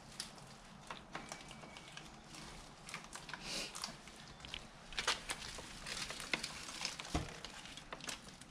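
New motorcycle drive chain being fed by hand around the front sprocket, its metal links clicking and rattling in scattered light clicks, with a brief rustle a few seconds in.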